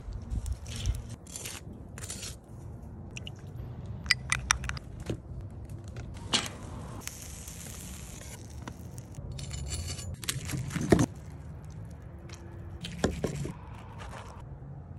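Metal cooking tools clinking and scraping on a steel grill grate, in a string of sharp clicks, with a short hiss about halfway through.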